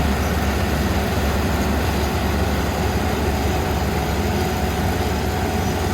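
Kubota ER470 combine harvester running, a steady low diesel drone with a dense mechanical rumble over it that holds even throughout.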